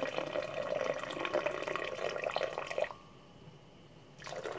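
Liquid poured in a steady stream into a blender jar. The pour stops abruptly about three seconds in, and a short second splash follows near the end as a little more is added.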